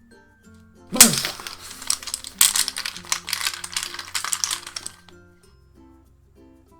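Small fidget toys clattering and clicking as they are handled, starting with a loud rattle about a second in and going on for about four seconds, over quiet background music.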